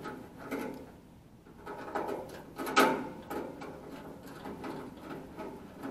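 A screwdriver working a screw on a small metal bracket on a sheet-metal heater cabinet: irregular metallic clicks, scrapes and light knocks, the loudest knock about three seconds in.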